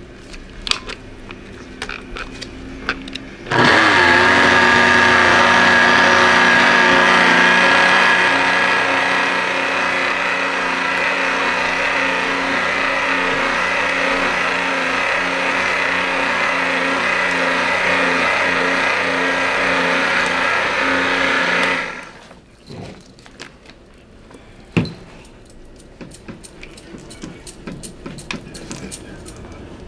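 Heavy-duty immersion (stick) blender running steadily in a bucket of liquid soap mixture. It starts about three and a half seconds in and stops abruptly a little past twenty seconds, with small knocks and clatter before and after.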